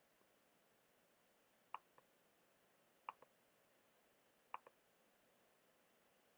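Computer mouse clicks in near silence: three clicks about a second and a half apart, each with a softer second click right after it, and one faint high tick before them.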